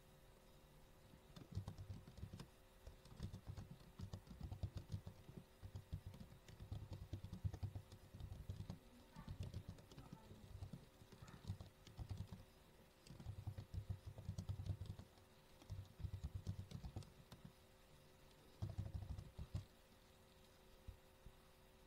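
Computer keyboard typing in quick runs of keystrokes with short pauses between them, stopping a couple of seconds before the end.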